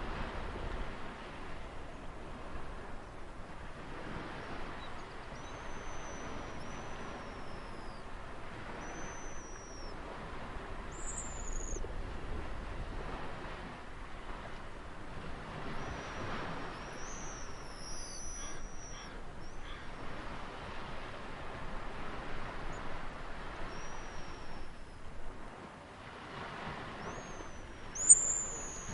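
Ocean surf washing in a steady, swelling hiss, with short high bird calls every few seconds; the loudest call comes near the end.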